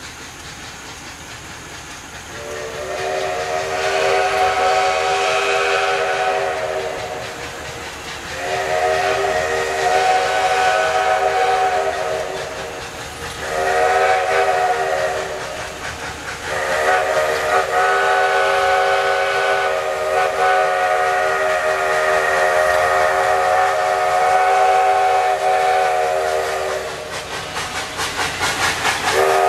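Steam locomotive chime whistle, Southern Railway 2-8-0 #154, sounding several notes at once in the grade-crossing signal: two long blasts, a short one, then a long one held for about ten seconds as the engine nears the crossing. Steam hiss lies underneath the blasts.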